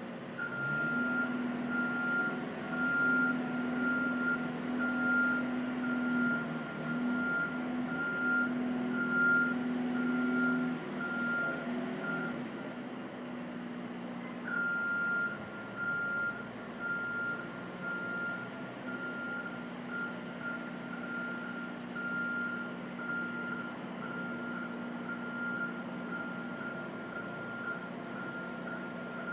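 Window-cleaning hoist vehicle running its engine while its motion alarm beeps, a single high tone repeating about one and a half times a second. The engine speeds up about half a second in and runs louder for the first ten seconds or so before settling lower, and the beeping pauses for about two seconds near the middle.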